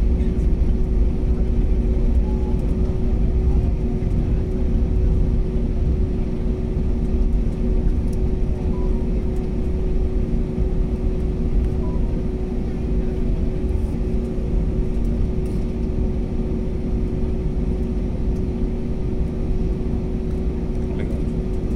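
Jet airliner cabin noise while taxiing onto the runway: a steady low engine rumble with a constant hum, easing slightly quieter over the stretch.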